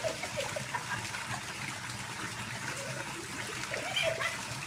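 Steady trickling of water in a koi pond.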